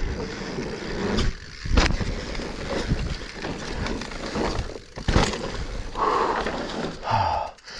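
Mountain bike, a Specialized Stumpjumper Evo Alloy, rolling down a loose, dusty dirt trail: a steady rough rumble of tyres and rattle, with a few sharp knocks as it hits roots and bumps.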